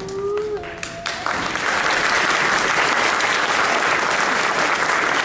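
Audience applauding steadily as a line of students walks onto the stage, beginning about a second in after a thin held tone fades out.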